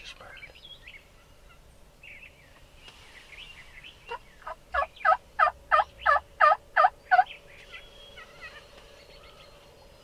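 A series of about ten loud turkey yelps, roughly three a second, starting about four seconds in and building in loudness over the first few notes, lasting about three seconds. Faint songbird chirps go on around it.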